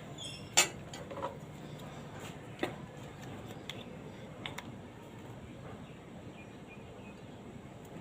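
A handful of sharp clicks and knocks, the loudest about half a second in, then fewer and fainter, over a steady low hum.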